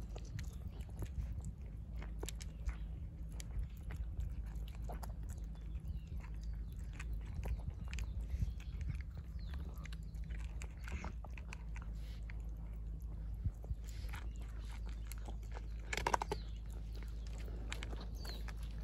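Cats crunching dry kibble mixed with wet food from a bowl: many small irregular chewing crunches, with one louder click near the end, over a steady low background hum.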